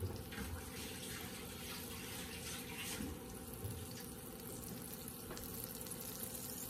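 Butter melting in hot olive oil and lemon juice in a stainless steel skillet, giving a soft steady sizzle with an occasional faint pop.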